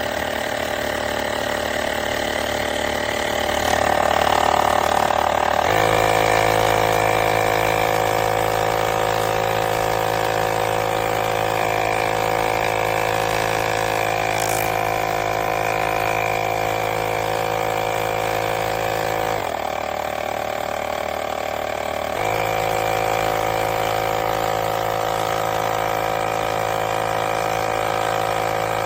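Cordless portable tire inflator's small electric piston compressor running with a steady, even hum. The note settles into a clear drone about 6 s in, dips briefly about two-thirds of the way through, then picks up again.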